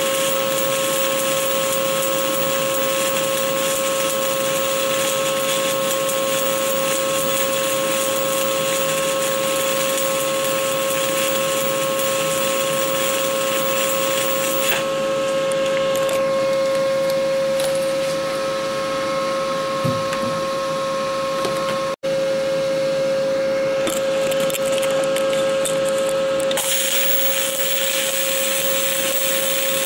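Stick-welding arc from a 7018 low-hydrogen electrode crackling and hissing steadily as it burns along an open root pass, with a steady hum underneath. Around the middle the crackle turns softer and duller for several seconds, breaks off for an instant, then comes back at full strength.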